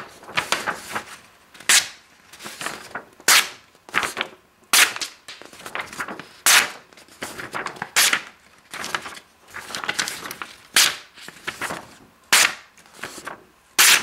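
An Emerson Persian folding knife slicing through a hand-held sheet of paper, over and over: each stroke a sharp, crisp rip, about one every second and a half, with softer paper crackle between strokes. The cuts are clean, from a very sharp factory edge.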